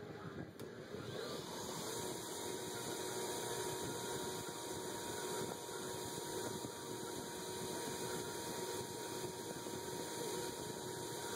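KMG belt grinder motor comes up to speed about a second in, then runs steadily with a constant hum while the steel cleaver blade is ground on the belt.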